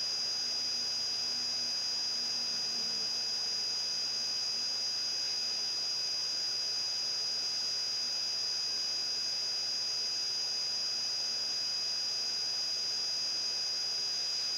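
Steady background hiss with a thin, high, unchanging whine: the electrical noise floor of the recording, with no other sound.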